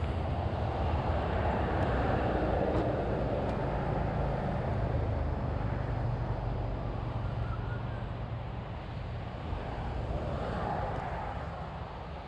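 Old John Deere excavator's diesel engine running steadily with the hydraulics working, the noise swelling for a couple of seconds near the start and again near the end as the stick is moved down over the thumb bracket.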